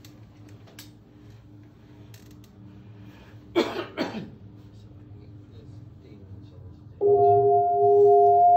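Improvised live performance sound: a faint steady hum, two short sweeping squeals about three and a half and four seconds in, then a loud sustained chord of steady ringing tones that starts abruptly about seven seconds in.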